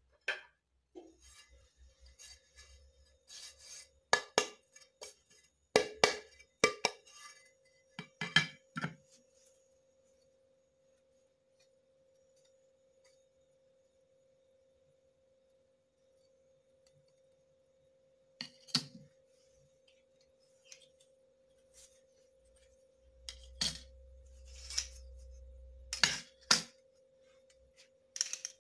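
Hard scraping and clicking on ceramic tile, in two bursts of short strokes with a quiet stretch between. A faint steady high hum runs under it.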